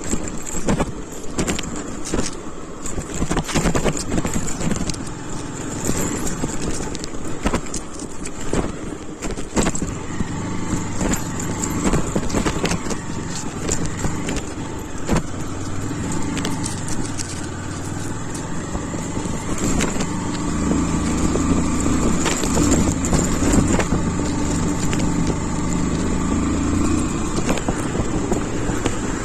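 Small Honda single-cylinder motorcycle engine running while riding a rough dirt road. Rattles, knocks and jangling keys from the bumps are frequent for about the first ten seconds, after which the engine note is steadier and grows louder.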